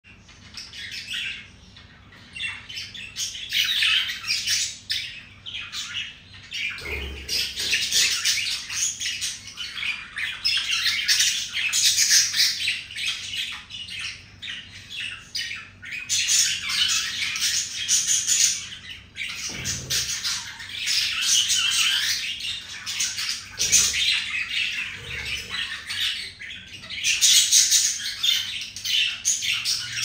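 Budgerigar chattering and warbling nearly without pause, a fast stream of high chirps and squawks: the courtship warble of a male budgie courting a female. A few soft low thumps come in between.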